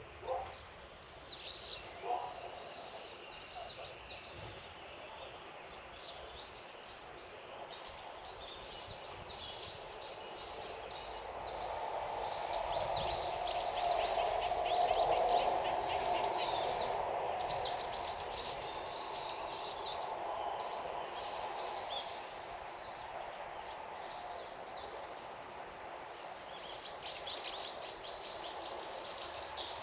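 Outdoor ambience with small birds calling again and again: high, short chirps and quick sweeping notes. A low, distant rumble swells to its loudest about halfway through and then fades.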